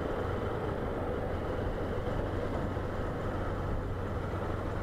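Honda CG 160 Start motorcycle's single-cylinder four-stroke engine running steadily while cruising at about 35 km/h, an even hum with road noise.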